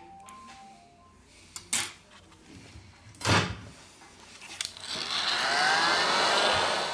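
A short thump a little under halfway through, then a heat gun blowing a steady hiss of air, with faint rising whistles in it, for the last two seconds.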